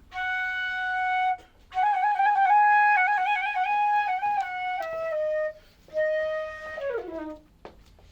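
Flute playing a melody in short phrases with brief pauses between them. The longest phrase has quick wavering ornaments, and a note slides downward near the end.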